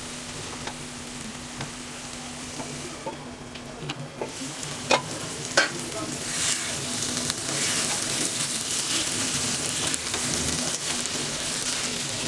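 Tomato-onion masala with boiled eggs sizzling in a cast-iron pan. Two sharp knocks come about five seconds in; after that the sizzle grows louder as a spatula stirs the pan.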